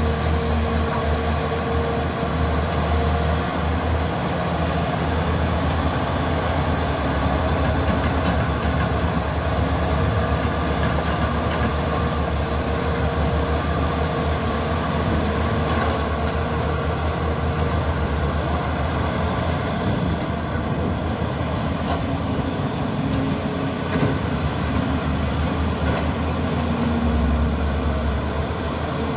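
Caterpillar E200B crawler excavators' diesel engines running steadily under load as they dig and lift wet river mud.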